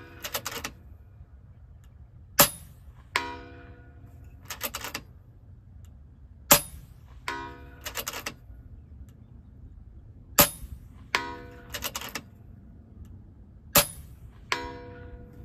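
FX Impact M3 PCP air rifle fired four times, a sharp crack every three to four seconds. Each shot is followed about three-quarters of a second later by a ringing metallic clang, and then by a few quick clicks as the action is cycled for the next pellet.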